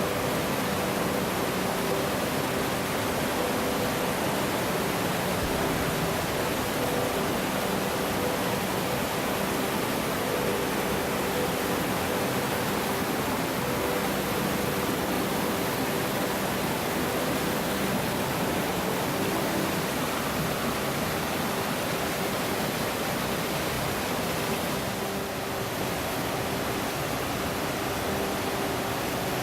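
Waterfall rushing in a steady, dense roar of falling water.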